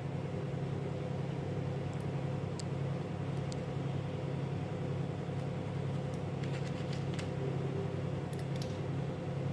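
A steady low machine hum, like a running motor or fan, with a few light clicks and taps in the second half.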